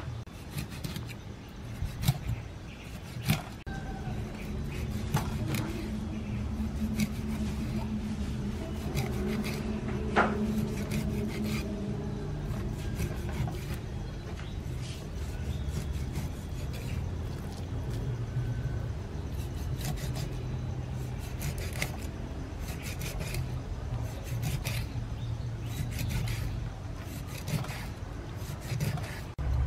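A knife and fish scraping and knocking on a wooden chopping board as a fish is prepared, with scattered sharp knocks, over a steady low rumble in the background.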